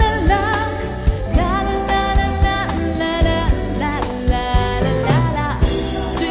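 Background music: a pop ballad with a singing voice over a steady beat.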